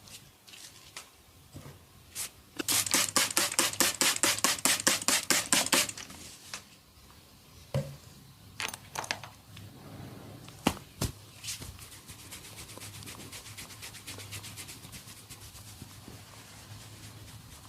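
Hands working an oiled scalp. A loud run of fast, even strokes at about seven a second lasts some three seconds, then come a few separate sharp clicks, then a softer, steady rapid rubbing.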